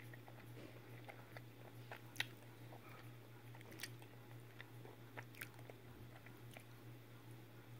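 Quiet, close chewing of chocolate from a chocolate candy egg, with scattered small mouth clicks and one sharper click about two seconds in. A steady low hum sits underneath.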